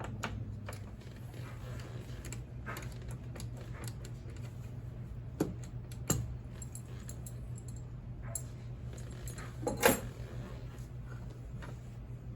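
Small metallic clicks and clinks of a screwdriver backing the Phillips screw out of an old window crank and working the crank loose, with a louder clatter about ten seconds in.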